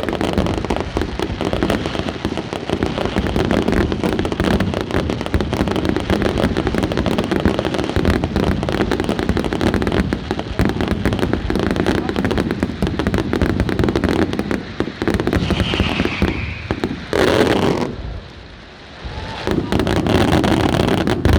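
Fireworks going off in a dense, continuous barrage of bangs and crackling. The barrage briefly thins out a few seconds before the end, then starts up again.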